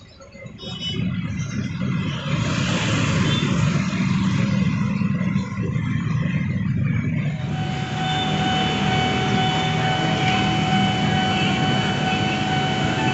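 Many motor scooter and car engines revving and pulling away together as a mass of traffic crosses the railway, a dense steady drone of small engines.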